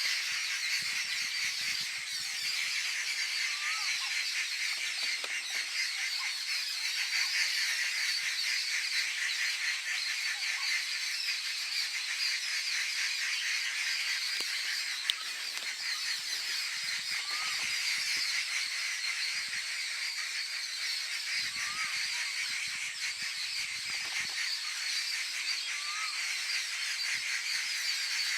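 A mob of forest birds giving alarm calls at a predator: continuous harsh chattering, which the uploader identifies as jungle babblers and rufous treepies, with a short rising call every few seconds. A single sharp click about halfway through.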